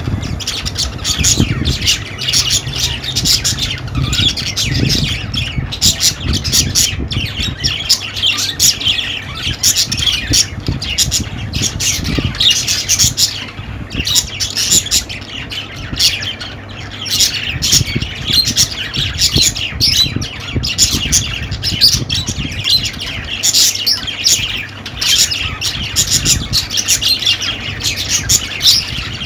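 A flock of budgerigars chattering continuously: rapid squawks, chirps and warbles with no break, over a low steady hum.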